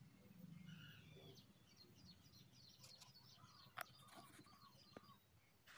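Near silence, with faint distant birds chirping and two soft clicks in the second half.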